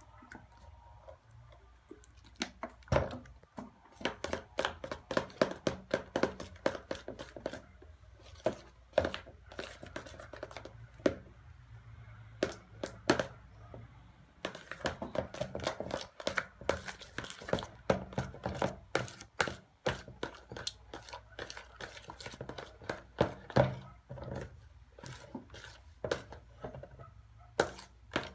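A spoon stirring thick, sticky slime in a plastic bowl, knocking and scraping against the bowl in quick, irregular clicks, as borax activator is mixed in to firm the slime up.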